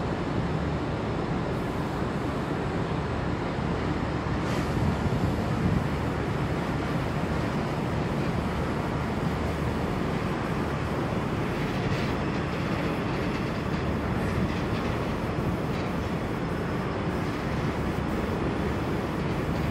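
Steady low rumble of a cargo ship's machinery running during undocking, with a few faint clicks.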